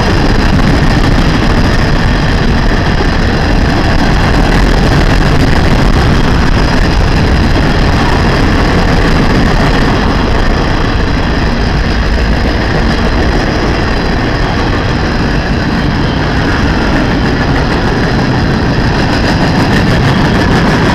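Freight train boxcars rolling past at speed: steel wheels running on the rails, loud and steady throughout.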